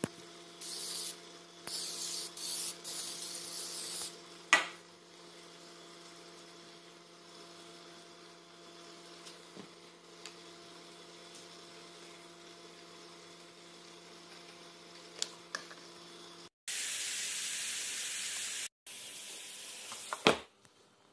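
A few short bursts of hiss and a sharp click, then a steady low hum. Near the end come two longer stretches of loud sizzling from chuck steaks on a smokeless electric grill, and the grill's lid shuts with a clack.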